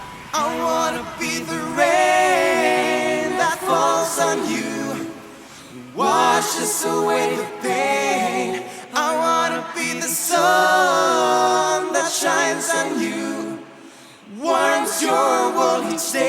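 Several voices singing a pop song in close harmony without instruments, in phrases that pause briefly twice.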